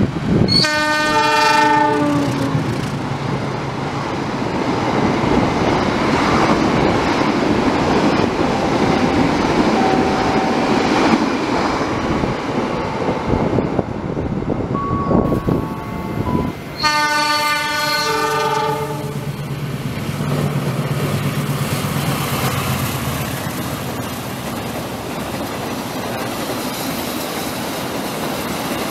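Diesel locomotive horn of a passenger train sounding a blast of about two seconds, a chord of several tones, over the rumble of the train rolling by. A second long horn blast comes about 17 seconds in, and the rumble of the passenger coaches passing continues after it.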